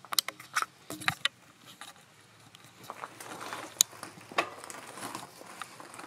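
Handling noise from a bicycle being moved: several sharp clicks and knocks in the first second, then from about halfway a steady rustle and crunch over leaf-strewn ground, broken by a couple of sharp clicks.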